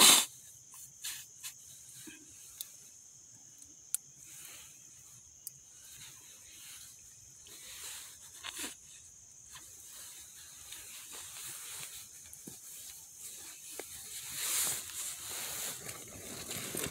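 Small wood cooking fire crackling, with scattered sharp pops over a steady high hiss and a louder stretch near the end. A loud brief thump comes right at the start.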